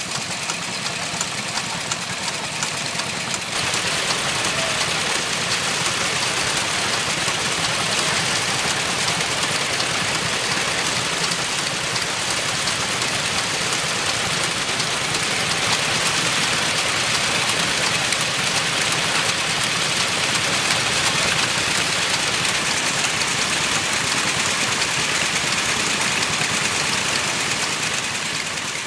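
Kubota ND15 horizontal, water-cooled, single-cylinder 15 hp diesel engine running steadily, with its valve gear working. The sound grows a little louder about three and a half seconds in.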